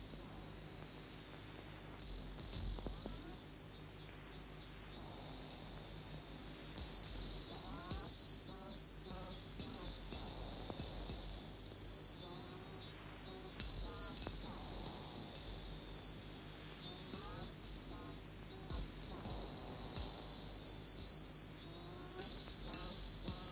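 Insects chirring: a high, steady shrill note that starts and stops in repeated phrases of a second or two, with fainter warbling notes underneath.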